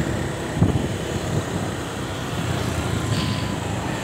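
Steady low rumble of a road vehicle's engine with traffic noise, with a sharp knock about half a second in and a brief hiss about three seconds in.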